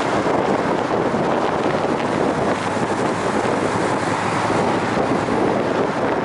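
Steady rush of wind and water, with wind buffeting the microphone.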